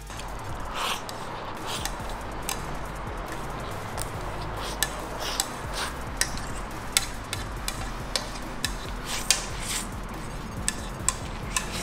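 Utensils clinking and scraping against a plate of black bean noodles while eating, in irregular short clicks over a steady low hum.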